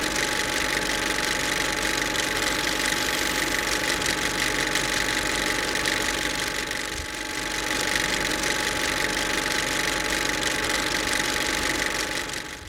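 A steady mechanical drone, like an engine or machine running, with a few constant tones over an even hiss; it fades slightly around the middle and stops near the end.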